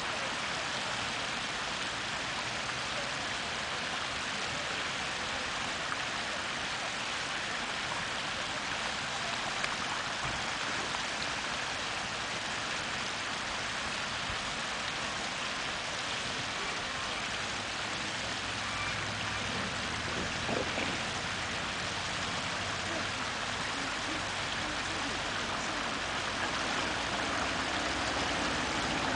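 Steady rushing of running water, an even hiss. A faint low hum joins about two thirds of the way in.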